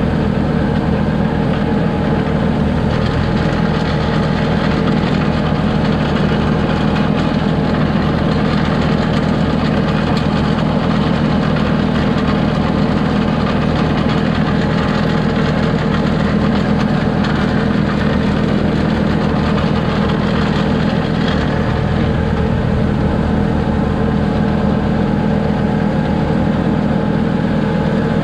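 Kioti DK40se tractor's diesel engine running steadily with its rear-mounted MK Martin Meteor PTO snowblower engaged, throwing snow.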